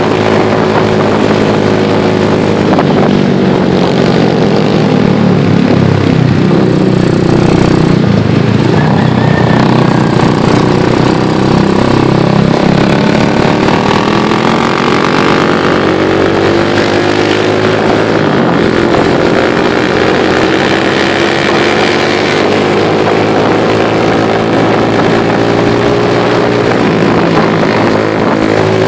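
Motorcycle engine running on the move, heard from on board, its pitch rising and falling with the throttle and gear changes. Wind rushes over the microphone, gustiest in the middle.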